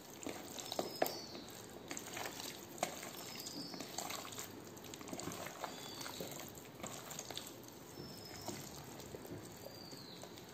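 A hand squeezing and turning marinated chicken pieces coated in a thick cornflour-and-oats masala in a plastic bowl: faint, irregular wet squishing with small clicks.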